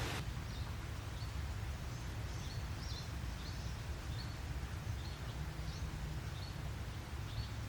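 Small bird chirping, a series of short high chirps roughly every half second, over a low steady rumble.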